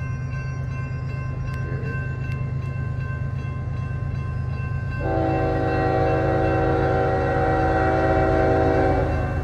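Railroad crossing warning bell ringing steadily over a low rumble. About five seconds in, an approaching Union Pacific diesel locomotive's air horn sounds one long chord-like blast lasting about four seconds, cutting off near the end.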